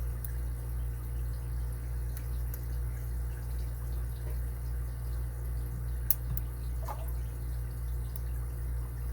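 Faint scattered clicks of a lock pick working the pins of an Abus 80Ti padlock, with one sharper click about six seconds in, over a steady low hum.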